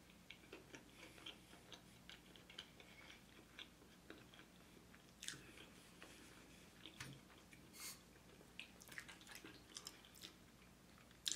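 Faint chewing of a mouthful of boneless chicken wings, with many small wet mouth clicks; a single sharper click comes near the end.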